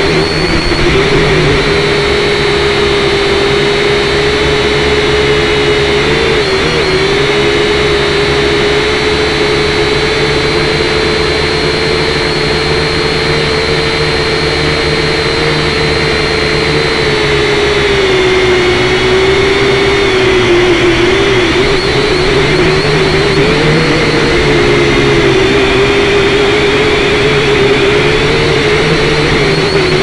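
Syma X5C quadcopter's small brushed motors and propellers whining loudly and steadily, heard close up through its own onboard camera. The pitch wavers as the throttle shifts and sags lower about two-thirds of the way in.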